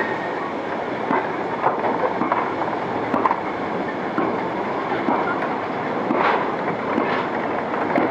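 Goods train of GWR wooden vans and open wagons rolling past, a steady rumble with the wheels clicking over the rail joints every half second to a second.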